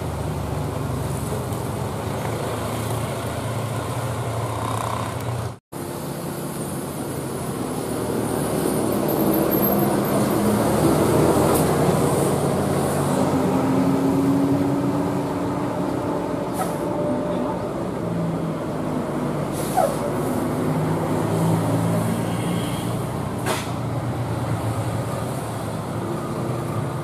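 Bus running on the road: a steady rumble of engine and road noise that swells in loudness for a few seconds near the middle. The sound cuts out for an instant about six seconds in, and a few short clicks come later.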